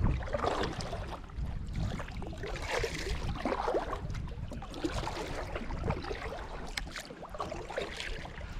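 Water splashing and sloshing around a kayak as it is maneuvered back out, with a few sharp knocks.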